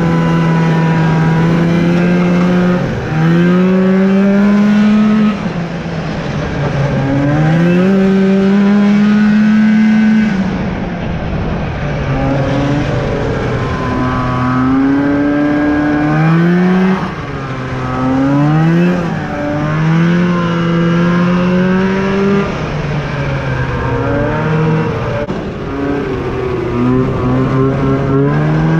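1983 Yamaha Excel III snowmobile's two-stroke engine under way, its pitch climbing each time the throttle is opened and dropping back when it is eased off, again and again. It runs on carburettor jets the owner calls the worst he has ever seen.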